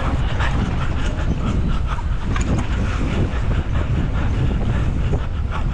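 Wind buffeting the microphone as a mountain bike is ridden fast down a dirt track: a steady low rumble with tyre noise and irregular clicks and rattles from the bike over the bumps.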